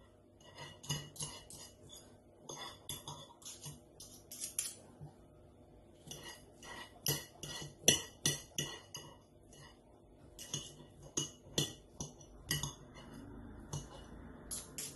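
Two metal forks clinking and scraping against a dish in short, irregular clicks while shredding cooked chicken drumsticks.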